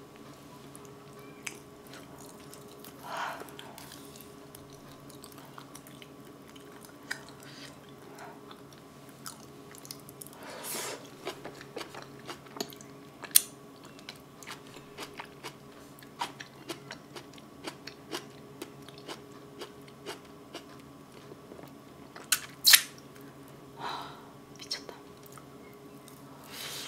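Close-miked eating sounds: soft chewing and wet lip smacks while eating boiled potato and braised kimchi, with finger licking and scattered clicks of the mouth, two of them sharper and louder.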